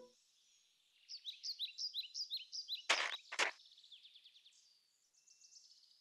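Birds twittering: a run of short, high chirps, several a second, starting about a second in and fading near the end. Two short swishes come around the middle.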